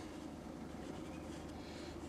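Faint steady low background hum, with no distinct clicks or knocks.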